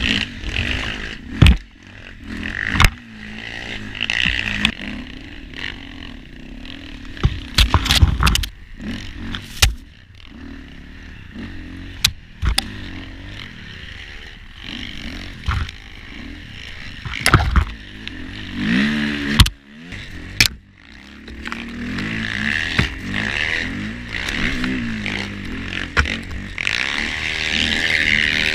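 A dirt bike fitted with a Timbersled snow-bike kit, its engine revving up and down as it ploughs through deep powder. Branches and snow scrape and knock against the bike over and over, with engine revs climbing about two-thirds of the way through and again near the end.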